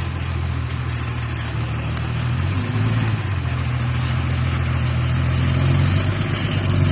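Loaded dump truck's diesel engine running at low revs as the truck reverses slowly. Its note steps up a little about two and a half seconds in and grows louder toward the end.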